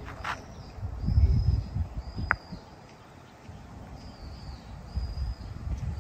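Outdoor ambience: a bird gives short, high, slightly falling whistled calls about once a second. Gusty low rumble of wind on the microphone runs underneath, and a single sharp click comes a little past two seconds in.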